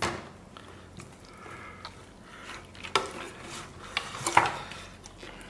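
A stainless steel slotted skimmer clinks and scrapes against a steel pot and plate as a braised pork knuckle is lifted out and set down. There are several separate metallic clinks, the loudest a little past four seconds in.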